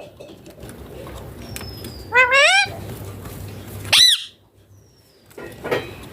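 Rose-ringed (Indian ringneck) parakeet calling: a short wavering, warbling call about two seconds in, then a sharp high squawk that rises and falls about four seconds in, and a fainter call near the end.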